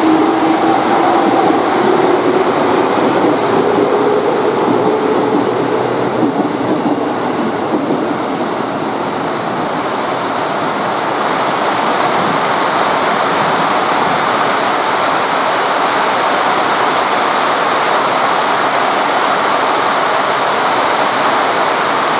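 Very heavy rain pouring down steadily. Over the first few seconds the traction motors of an electric commuter train whine, rising in pitch as the train gathers speed.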